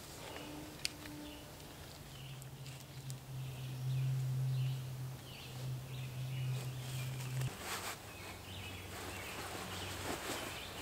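Wild birds chirping in woodland over a low steady hum that is loudest in the middle. Near the end, rustling and footsteps on the leaf-littered forest floor.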